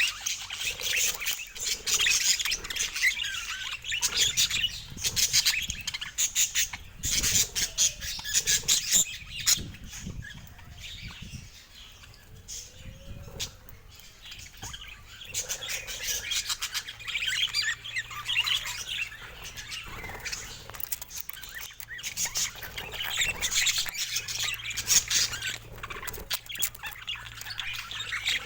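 A group of budgerigars chattering with fast, busy chirping; the chatter thins out for a few seconds around the middle, then picks up again.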